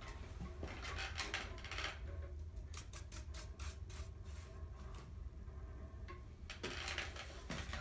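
Scattered faint clicks and rubbing from hands working on a ceiling-fan test rig, over a low steady hum.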